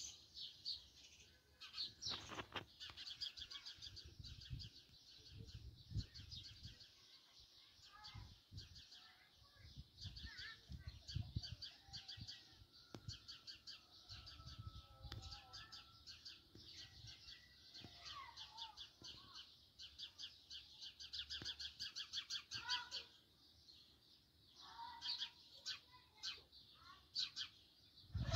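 House sparrows chirping in a dense run of rapid, overlapping chirps that thins out near the end into fewer, sharper calls.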